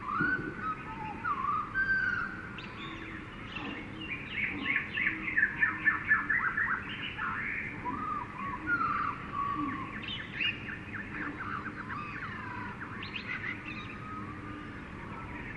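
Several birds chirping and calling at once in a jungle soundscape, with a quick run of rapid repeated notes about five to six seconds in, over a steady background hiss.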